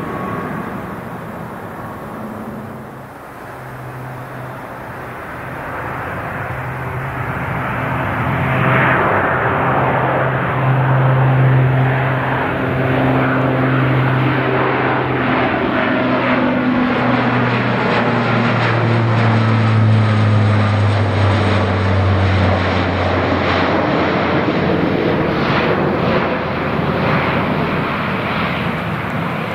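Lockheed C-130J Super Hercules turboprop engines and propellers droning as the aircraft flies low overhead. The drone grows louder, then its low tones slide down in pitch about two-thirds of the way through as it passes and moves away.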